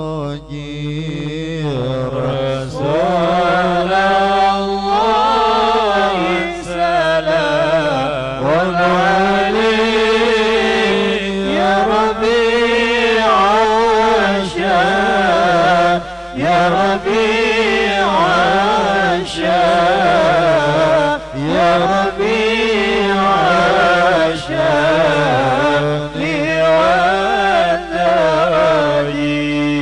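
A man chanting Arabic sholawat (Islamic devotional verses in praise of the Prophet) solo into a microphone, in long melismatic phrases that wind up and down in pitch, with short breaks for breath.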